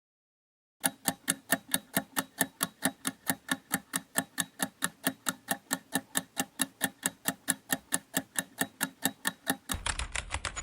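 Countdown-timer ticking sound effect: sharp, even ticks, about five a second, for some nine seconds. A brief, noisier sound starts near the end.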